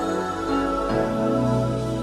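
Slow background music with held chords; the bass moves to a new note about a second in.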